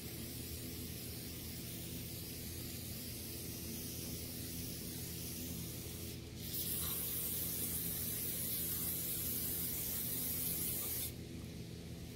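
Aerosol spray can hissing through a straw nozzle onto a small engine carburetor to clean it. The spray breaks briefly about six seconds in, then resumes louder and cuts off about a second before the end.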